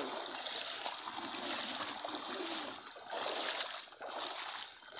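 Floodwater sloshing and splashing around a group of people wading through it, coming in uneven surges that drop away briefly a few times, with faint voices in the first half.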